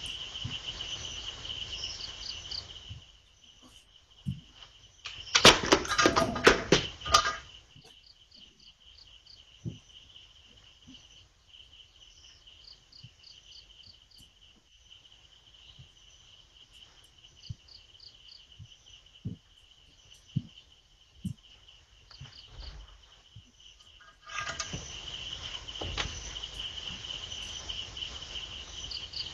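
Crickets chirping in a steady high trill. A burst of loud knocks and clatter comes about five seconds in and lasts a couple of seconds, with a few faint clicks after it.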